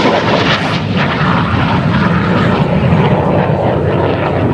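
Military jet flying past on afterburner: loud, steady, rumbling jet noise.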